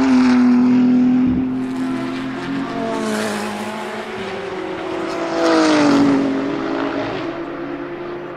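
BMW M4 GT3's twin-turbo 3.0-litre straight-six P58 engine at high revs as the race car passes, loudest in the first second and again about five and a half seconds in, where its pitch falls as it goes by. A sharp pop about a second and a half in.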